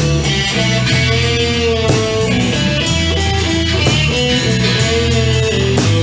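Blues-rock band playing an instrumental passage: electric guitar with held notes that bend in pitch, over bass and drums.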